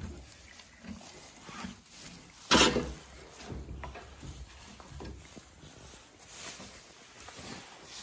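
A Clydesdale horse gives one short, loud snort, a blast of breath through the nostrils, about two and a half seconds in. Around it, quieter low rumble and rustling from the handheld phone moving through the straw-bedded stall.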